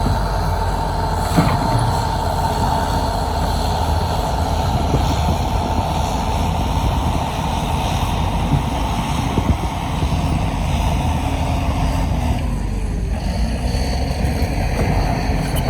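Heavy diesel earthmoving machinery running steadily under load, a deep rumble with a steady whine on top that fades out about twelve seconds in.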